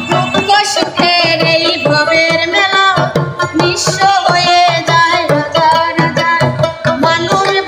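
A woman singing a Bengali Baul folk song in a high voice with gliding, ornamented notes, accompanied by a plucked dotara and a steady hand-drum beat.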